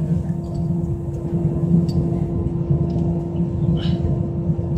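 Airbus A321 jet engines and airframe during takeoff, heard from inside the passenger cabin: a steady hum over a low rumble, with a few faint clicks.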